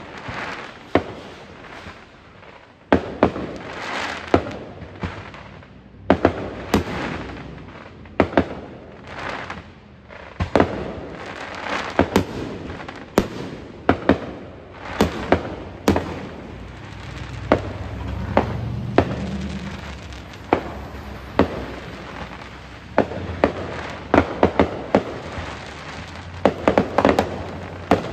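Aerial fireworks display: a continuous run of sharp bangs, often two or three in quick succession, with echoing rumble between them.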